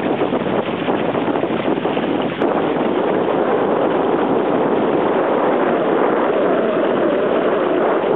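Steady rush of water along a yacht's bow as it cuts through the sea, mixed with wind buffeting the microphone.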